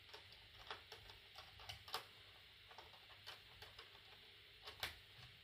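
Small, irregular clicks from an HO-scale model flat wagon being handled on the track at its coupling, with two sharper clicks about two seconds in and near the end, over near-silent room tone.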